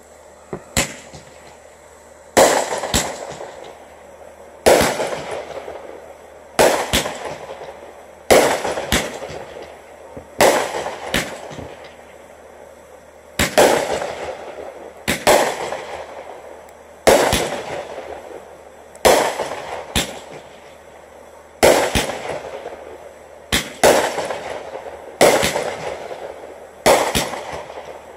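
Aerial fireworks bursting in a steady series, a loud bang about every two seconds, each one trailing off before the next, with a few smaller pops in between.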